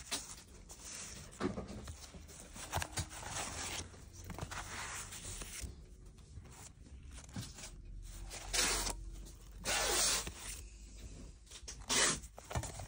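Paper record sleeves rustling and scraping against each other as a stack of old gramophone records is leafed through, in irregular bursts, the loudest a little before nine, at ten and at twelve seconds in.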